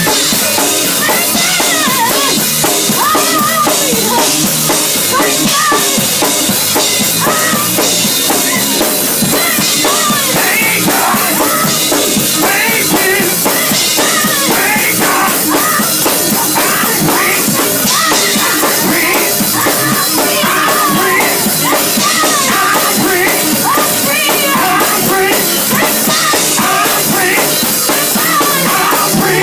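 Loud live gospel music: a drum kit playing behind several singers on microphones.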